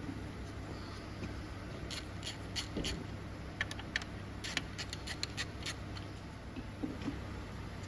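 Light, irregular metallic clicks and scrapes, about a dozen, from hand tools and parts while con rods and pistons come off a Ford GPW engine, over a steady low hum.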